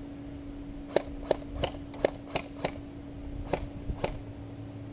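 Airsoft guns firing single shots during a game: about eight sharp cracks over three seconds, roughly three a second, with a short pause before the last two.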